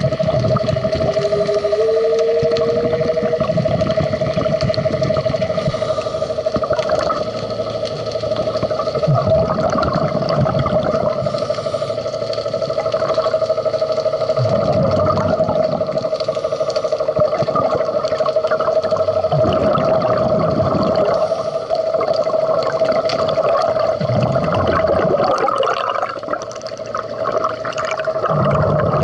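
Underwater recording of scuba diving: a steady mechanical tone carried through the water, with a low rush of diver's exhaled bubbles about every five seconds. A short tone rises in pitch near the start.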